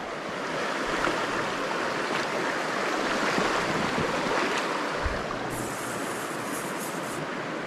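Creek water flowing steadily over a riffle, with a small knock about five seconds in.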